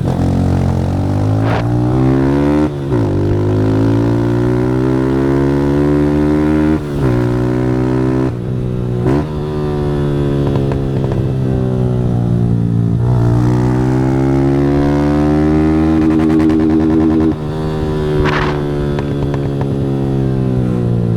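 Motorcycle engine with an aftermarket Fortuna Trioval exhaust, accelerating hard through the gears. Its pitch climbs, then drops back at each upshift, about five times, over a low wind rumble.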